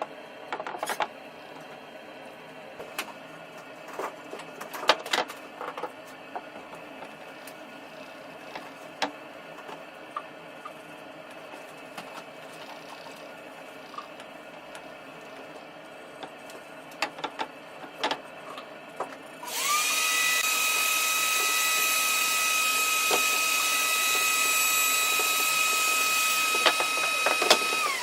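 Scattered light taps and clicks, then an electric power tool's motor starts about two-thirds of the way through, runs at a steady high speed with a whine and hiss for about eight seconds, and winds down near the end.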